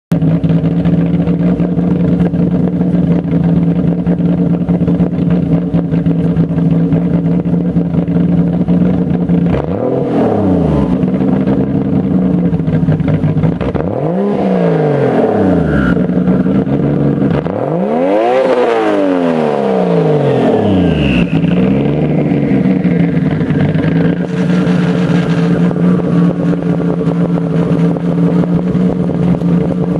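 Car engine idling, then blipped several times in quick short revs that rise and fall back to idle. After the revs a faint high whine slowly falls in pitch over several seconds: the odd noise that appears after free-revving.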